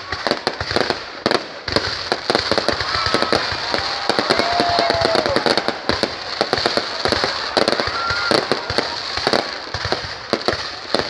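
Fireworks going off in a dense, irregular run of sharp crackling pops, with a couple of short whistling tones in the middle and near the end.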